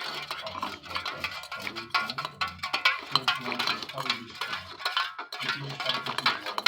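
Background music with percussion from a television programme, with some speech mixed in.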